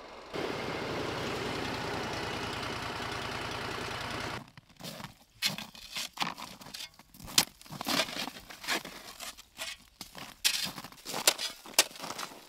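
Small snowmobile engine running steadily, cutting off abruptly about four seconds in. Then a shovel digging and scraping into packed snow in a string of irregular, sharp crunching strokes, the loudest sounds here.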